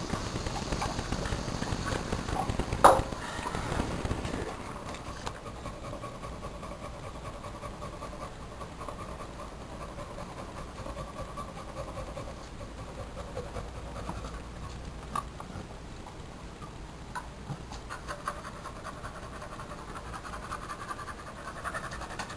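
Beagle panting steadily, mouth open and tongue out. A single sharp knock about three seconds in.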